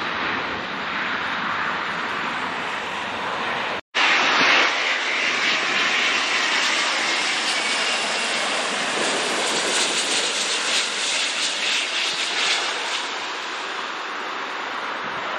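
Jet airliner engine noise: a steady roar from a Delta widebody jet on the runway, cut off abruptly about four seconds in, then a louder steady jet roar from an SAS Airbus A350-900 with Rolls-Royce Trent XWB engines descending on final approach to land.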